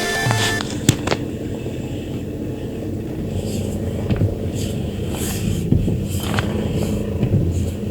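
Peugeot 308 car running, a steady low rumble, with two short clicks about a second in.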